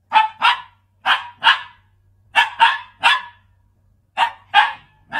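A dog barking in quick pairs and threes: about ten short, sharp barks with brief pauses between the clusters.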